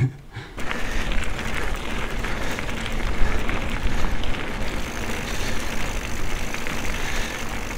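Mountain bike riding along a gravel path: tyres rolling over the grit with a fine crackle, under steady wind rumble on the helmet-mounted camera's microphone. It starts about half a second in and keeps an even level.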